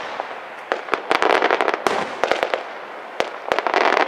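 Aerial firework shells bursting in quick succession: sharp bangs with dense crackling between them. The crackle swells about a second in and again near the end.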